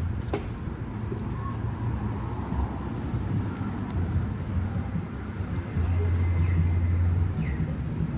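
City street traffic: a vehicle engine rumbling low and steady, getting louder about six seconds in, with a few short high chirps near the end.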